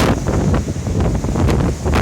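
Strong storm wind buffeting the microphone in uneven gusts, a heavy low rumble with a hissy gust at the start.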